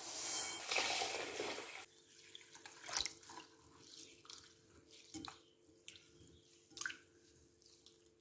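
Dry rice grains poured into a glass bowl, a steady hiss that stops about two seconds in. Then a hand swishes and rubs the rice in water, with small scattered splashes and clicks.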